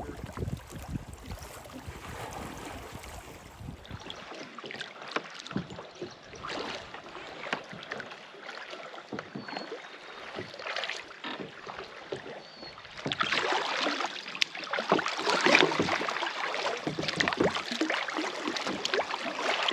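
Kayak paddles dipping and splashing in lake water in irregular strokes, louder from about 13 seconds in. Low wind rumble on the microphone for the first few seconds.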